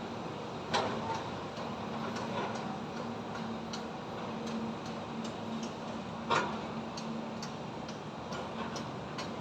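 Construction site ambience: a steady background rumble with a low hum, overlaid by scattered light taps and clicks and two louder knocks, about a second in and about six seconds in.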